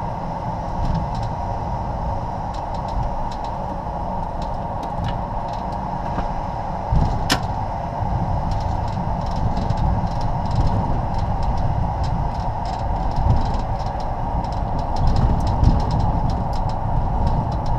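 Cockpit noise of a Bombardier Global Express rolling on the ground after landing: a steady rumble from the wheels and airframe under an even rushing hiss, with scattered light knocks and ticks and one sharp click about seven seconds in.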